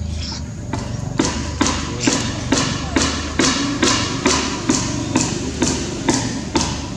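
Even, regular thumps, a little more than two a second, starting just under a second in, over a steady low hum.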